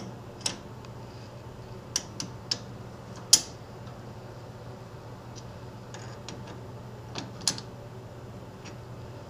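Sharp metal clicks and knocks of a chuck key on the jaws of a lathe's four-jaw chuck as the chuck is turned by hand and the jaws are snugged up. The loudest is a single knock about a third of the way in, over a steady low hum.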